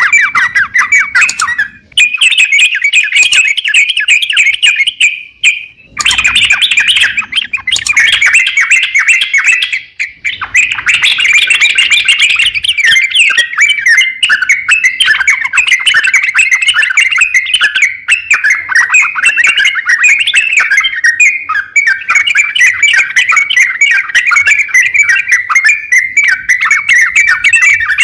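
Crokcokan songbird singing loudly in a long, fast, chattering run of harsh notes, pausing briefly about two, six and ten seconds in.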